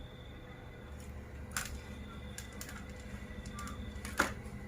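A few light clicks and taps of small tools or parts being handled on a workbench, the loudest near the end, over a low steady hum.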